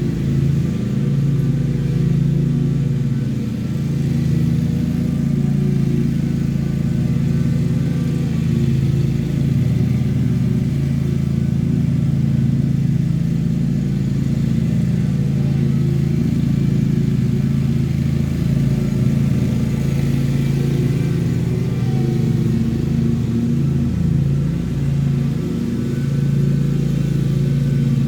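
Lawn mower engine running steadily under load while mowing, its note wavering slightly now and then.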